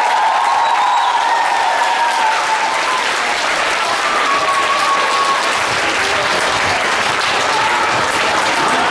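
Theatre audience applauding steadily at a curtain call.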